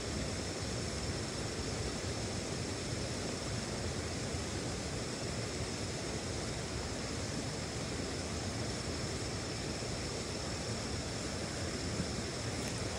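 Steady rushing outdoor noise, like moving water or wind, with a faint steady high-pitched tone above it and a small click near the end.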